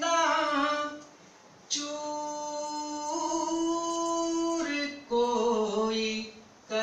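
A man singing Urdu couplets unaccompanied into a microphone, in phrases with short pauses between them. In the middle comes one long held note that steps up in pitch partway through.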